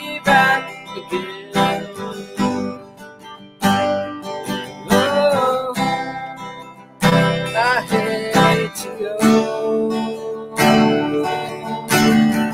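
Acoustic guitar strumming a slow folk ballad, with a man singing over it in phrases.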